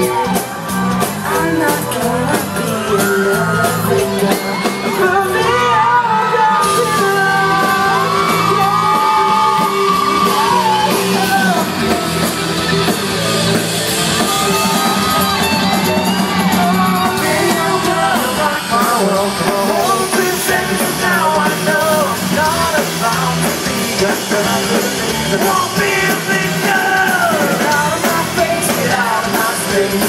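Live pop-rock band playing through a concert PA, with a male lead vocal, electric guitar and drums, while fans in the crowd yell and scream.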